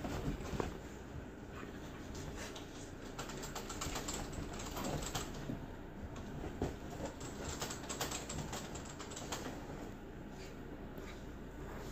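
A standard poodle and a husky play-wrestling: scuffling with many irregular light clicks and taps.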